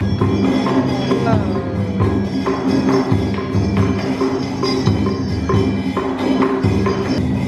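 Traditional Vietnamese water-puppet band playing: sustained instrument tones over steady wood-block and drum strikes, with a note sliding down in pitch about a second in.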